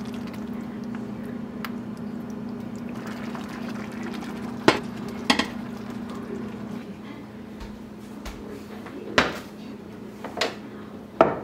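Thick chili being stirred in an enamelled pot, wet and sloppy, over a steady low hum. About halfway through come two sharp clanks of metal cookware, then a few lighter knocks near the end as glass jars are handled.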